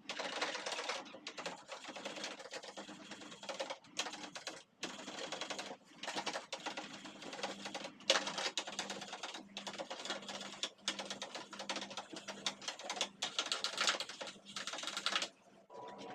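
Scratchy hand-scrubbing of appliance parts: quick dense strokes in runs with short breaks, stopping abruptly shortly before the end.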